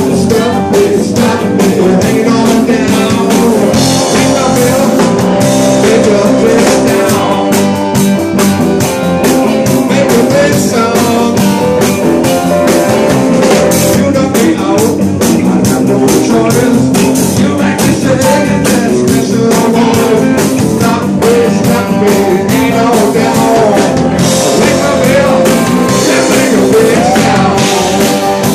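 Live rock band playing loudly: a drum kit keeping a steady beat under electric guitars.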